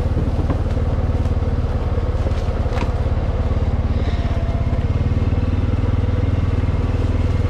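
Four-wheeler (ATV) engine running steadily as it rides along a trail, with an even, rapid exhaust pulse.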